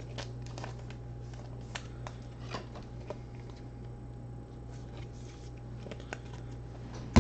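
A steady low electrical hum with a faint steady tone above it, and scattered faint clicks and rustles over it.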